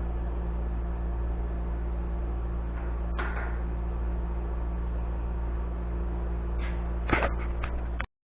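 Steady low electrical hum with a single knock about three seconds in, then a quick cluster of knocks and clatter near the end, like hard objects being handled on a workbench; the sound cuts off abruptly just before the end.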